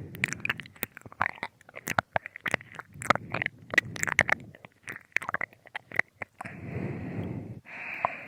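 Binaural ear-licking ASMR: close wet mouth clicks, smacks and licking sounds right at the microphone ear, irregular and dense, giving way near the end to a couple of soft breaths.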